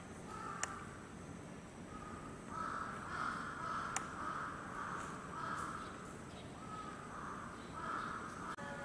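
A bird cawing harshly, again and again, from about two and a half seconds in. Two sharp clicks sound near the start and near the middle.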